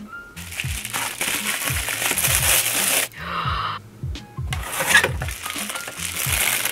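Plastic and bubble-wrap packaging crinkling as it is handled, in two long spells with a short break between, over background music with a repeating low bass line.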